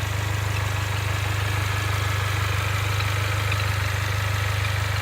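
Mercedes-Benz A45 AMG running with a steady low drone, with a few faint, very short high chirps, the bird-like abnormal noise the owner hears once the car is fully warmed up.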